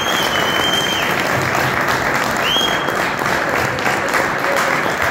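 A small group applauding steadily after a speech, with two short high tones over the clapping, one at the start and one about halfway through.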